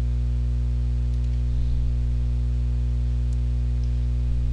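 Steady electrical mains hum with a faint hiss underneath.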